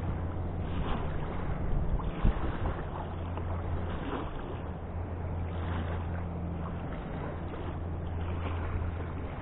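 Steady wind rumbling on the microphone over the wash of a choppy river, with one short click about two seconds in.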